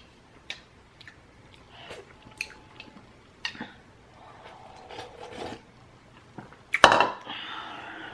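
A person eating ramen noodles close to the microphone: chewing with scattered light clicks, and one louder noisy burst about seven seconds in.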